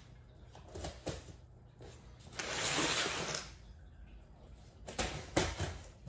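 Scissors slitting packing tape on a cardboard box: a drawn-out ripping hiss about two and a half seconds in, then a few sharp clicks and scrapes of the blades and cardboard near the end.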